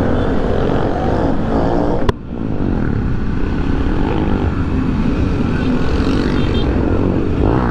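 Honda XRE300's single-cylinder four-stroke engine running as the motorcycle rolls slowly, mixed with other motorcycles' engines around it. A sharp click about two seconds in.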